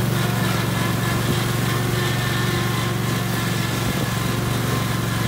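AL-KO Solo T22-110.0 HDH-A V2 Premium ride-on lawn tractor's V-twin engine running at a steady speed while it mows tall, uncut grass, with an even low hum and no change in pitch.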